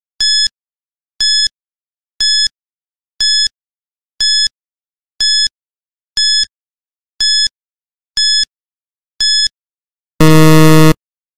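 Quiz countdown timer: ten short, high electronic beeps, about one a second, then a louder, lower buzzer lasting under a second near the end as the timer reaches zero.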